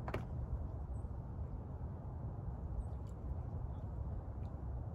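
Steady low rumble of outdoor background noise, with a single sharp click just after the start.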